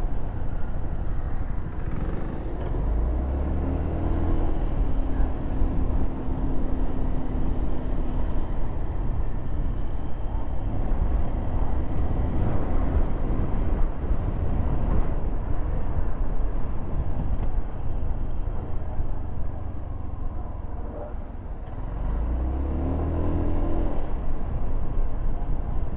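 Car driving in traffic: steady engine and road noise, with the engine pitch rising as it accelerates about three seconds in and again near the end, and a brief easing off just before.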